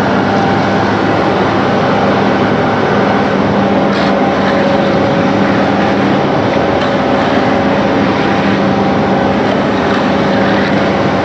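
Concrete pump running, a loud, steady engine drone with a constant hum and no change in pace.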